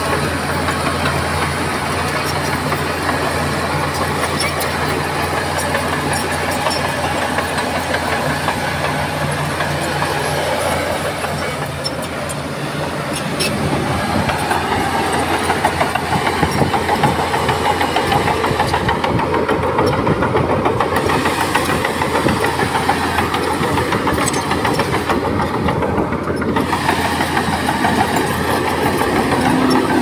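Heavy diesel earthmoving machinery running continuously: an engine holding a steady idle, then working harder and louder from about halfway through.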